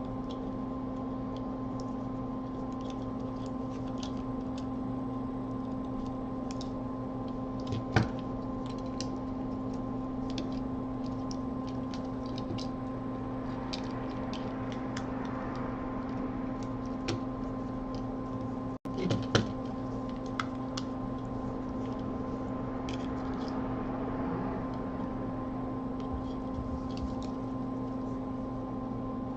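Light clicks and taps of small phone parts and housing being handled over a steady electrical hum of bench equipment, with a sharper click about eight seconds in and a couple more a little past halfway.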